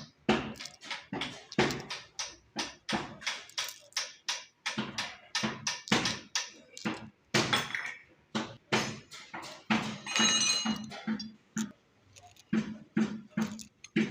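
Background music with a busy percussive beat: sharp hits two to three times a second, a ringing pitched phrase about ten seconds in, and a pulsing bass toward the end.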